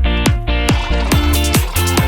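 Background electronic music: a steady kick drum about twice a second under held synth chords, with hi-hats joining about a second in.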